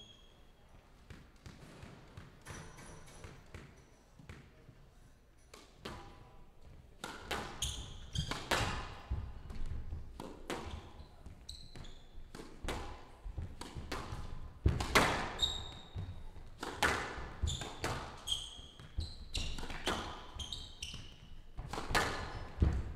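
Squash rally: sharp smacks of the ball off rackets and the front and glass walls, mixed with short squeaks of court shoes on the floor. The hits are sparse at first, then come fast and loud from about a third of the way in.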